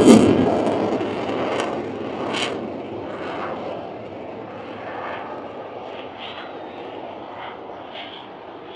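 An airplane's engine noise, loudest at the start and fading over the next few seconds as the aircraft passes and moves away, then a lower steady engine sound.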